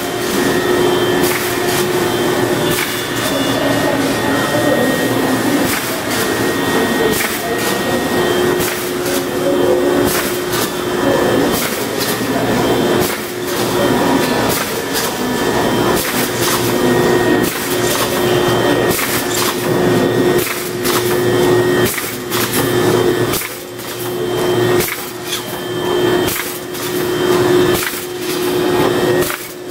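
LY 1250 plastic bag-making machine with wicketer running: a steady mechanical hum with a held tone, under frequent sharp clacks from its moving parts.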